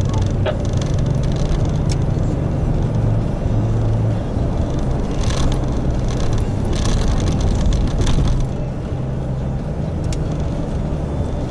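Car cabin noise while driving: a steady low engine and road drone with tyre hiss, and a couple of louder rushes about five and seven seconds in.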